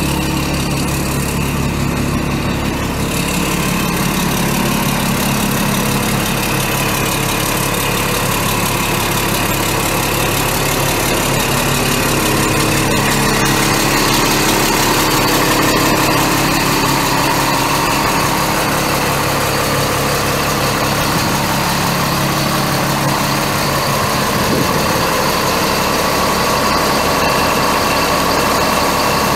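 Caterpillar 3126 inline-six turbo diesel of a 2003 Sterling LT7501 dump truck idling steadily.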